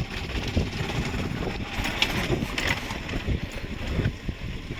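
Wind buffeting the microphone over a motorcycle running along a rough dirt road: an uneven rumbling rush without a steady tone.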